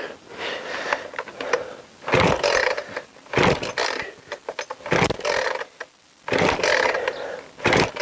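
Petrol chainsaw being pull-started on full choke: the recoil starter cord yanked several times, about a second and a half apart, the two-stroke engine cranking over without catching. The owner suspects it is flooded.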